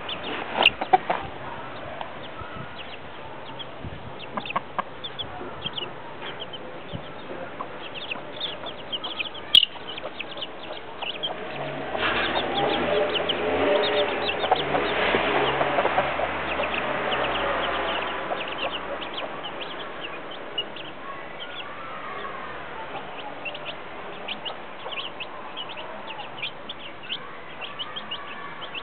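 Week-old chicks peeping in frequent short, high cheeps, with a mother hen clucking. Midway, a louder stretch with a low hum swells for about six seconds, then fades.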